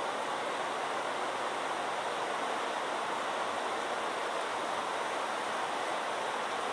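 Heavy rain falling steadily: a continuous, even hiss.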